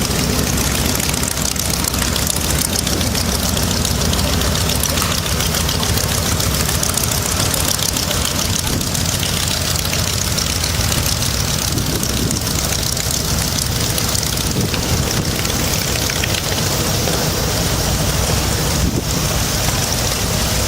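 Mitsubishi Zero fighter's Nakajima Sakae radial engine running steadily on the ground, its propeller turning, with a constant rapid beat and a hiss over the top.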